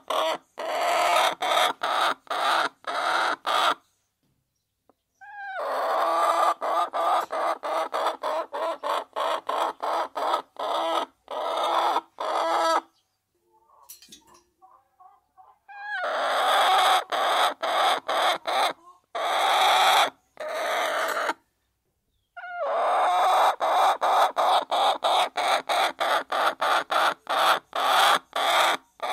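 A flock of hens clucking as they feed. The sound comes in four long stretches separated by short pauses, and it cuts in and out abruptly several times a second within each stretch.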